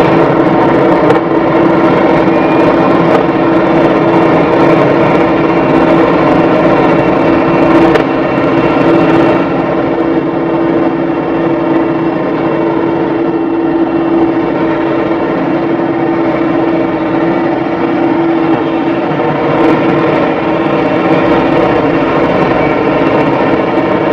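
Diesel engine of heavy machinery running steadily with a constant droning hum, easing off slightly about ten seconds in.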